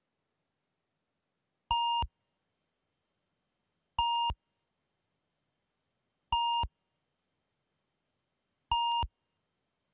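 Commodore 128 BASIC program's electronic beep, played through an emulated SID sound chip: four identical short, buzzy tones, each about a third of a second, repeating about every two and a third seconds with dead silence between.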